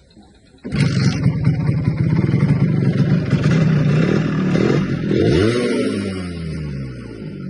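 Suzuki motorcycle engine starting about a second in and running, revved up briefly and dropping back near the end: a test start after the spark plug was refitted during a tune-up.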